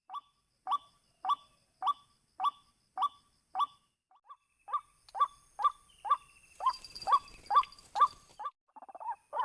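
White-breasted waterhen calls: a steady series of short, sharp 'kwak' notes, nearly two a second, with a brief pause about four seconds in before they resume a little faster. This is the repetitive call used to lure waterhens to the snares.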